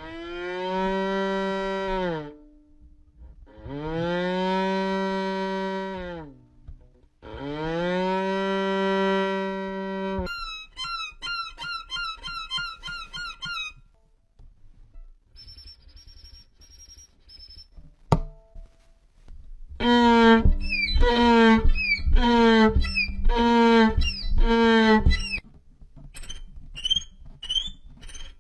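Violin played for sound effects: three long bowed notes that bend in pitch at their ends, then a flurry of quick high notes, high thin repeated tones, a sharp click, a run of short repeated notes, and high chirping notes near the end.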